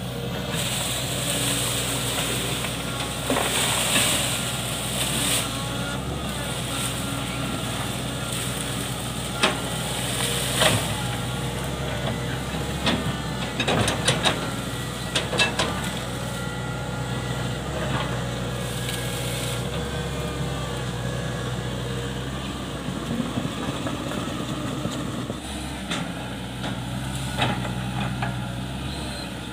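Hitachi hydraulic crawler excavator's diesel engine running steadily under load while the machine clears brush. Sharp cracks and knocks come now and then, bunched about halfway through, as the bucket breaks into vegetation and wood.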